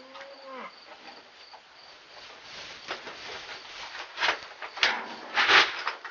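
Rustling and scuffing of a person handling a plastic feed bucket in a hay-bedded pen, with loud scuffs about four, nearly five and five and a half seconds in. A steady high insect chirring runs underneath.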